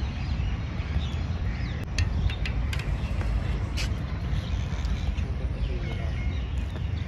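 Outdoor park ambience: a steady low rumble with a few short, faint bird chirps scattered through it.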